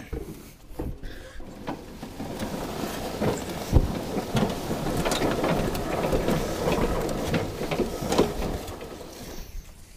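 Scraping and crackling with many sharp knocks, building over a few seconds and fading near the end: a riding lawn mower being manhandled, pushed and dragged along with its plastic and metal parts knocking.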